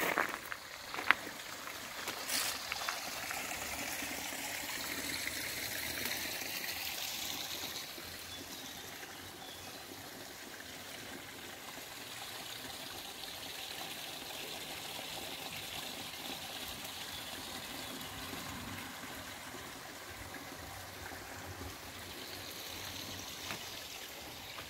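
Water running and trickling steadily, a little louder for the first several seconds, with a few footsteps near the start.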